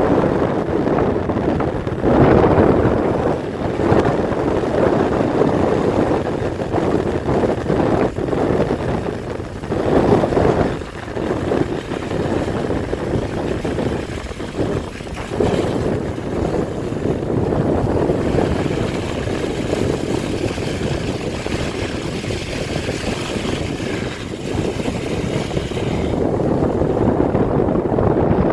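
Vehicle noise from inside a car moving along a rough road: a steady rumble and rush of wind and tyres that keeps rising and falling in level, with wind buffeting the microphone.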